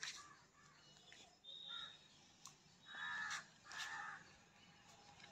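A crow cawing: one short call nearly two seconds in, then two longer caws about three and four seconds in.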